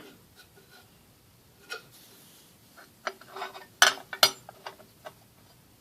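Small metal clicks and knocks as the parts of an air compressor's pump head are handled and fitted together, with two sharper clinks about four seconds in.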